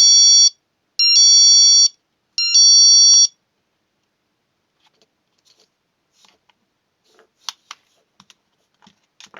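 Battery-powered magnetic door/window alert sounding its electronic chime three times through its small speaker, each chime just under a second long and about a second and a half apart. A few faint plastic clicks follow as the unit is handled.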